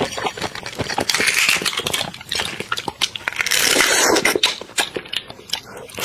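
Close-miked eating of a large whole cooked prawn: shell crackling and cracking as it is peeled apart and bitten, in quick clicks, with two longer hissy stretches of sucking at the shell, about a second in and around four seconds.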